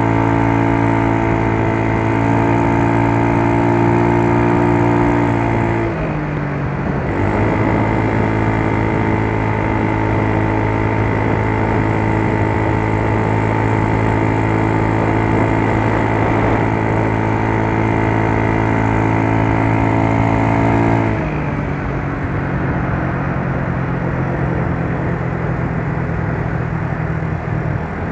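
Yamaha Mio Soul scooter's single-cylinder four-stroke engine running at a steady pitch. Its speed dips about six seconds in and picks up again a second later, then settles to a lower steady speed about 21 seconds in.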